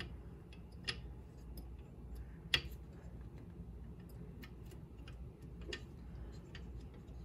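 Scattered small metal clicks and taps, the loudest about two and a half seconds in, as the double-sided blade of a Bridge City HP-12 hand plane is fitted back into its blade holder.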